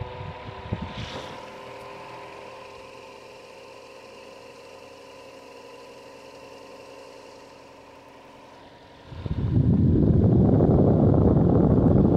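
Air Castle 148H electric fan running with a steady motor hum, with a few knocks about a second in. About nine seconds in, a loud rush of wind noise cuts in as the fan's airflow blows across the microphone.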